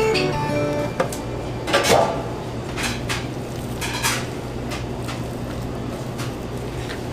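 Gloved hands squishing and kneading wet ground beef in a stainless steel pan: a scattered series of short, wet handling noises and knocks against the pan, the loudest about two seconds in, over a steady low hum.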